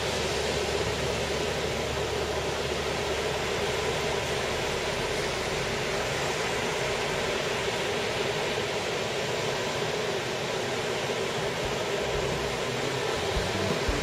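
Steady rush of surf breaking on a sandy beach.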